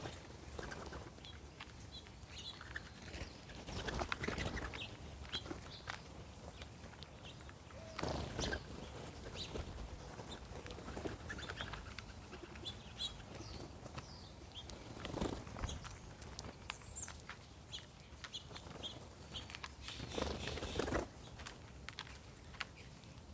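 Mourning doves' wings flapping in several loud bursts as birds fly in and out, with scattered short chirps from small birds such as finches and sparrows throughout.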